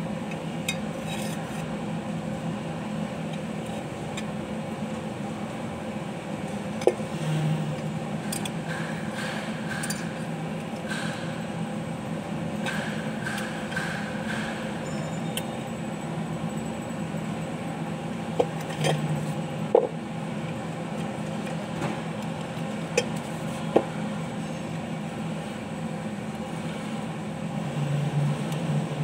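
Steel driveshaft parts clinking and knocking a few times as they are handled and fitted together on a workbench, over a steady low hum.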